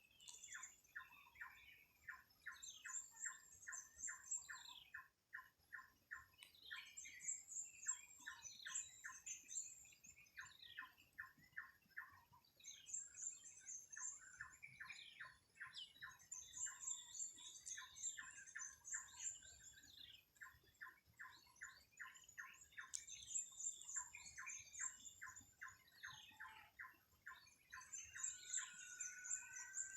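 Birds calling in a village morning chorus: runs of rapid, short repeated notes, several a second, broken by brief pauses, with higher thin chattering over them.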